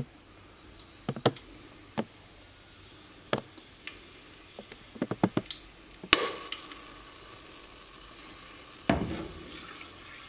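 Whole spices (cinnamon bark, cloves, cardamom pods) snapped by hand with small sharp clicks and dropped into hot oil and ghee in an aluminium pressure cooker, sizzling as they land. A louder clink and sizzle comes about six seconds in, and another sizzle near nine seconds.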